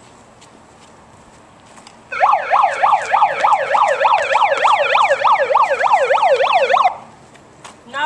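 Police siren on its rapid yelp setting, sweeping up and down about four times a second. It starts abruptly about two seconds in and stops about seven seconds in.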